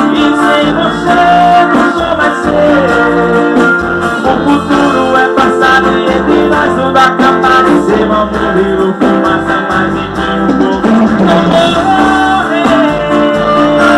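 A Brazilian popular song playing loudly, with guitar among the instruments.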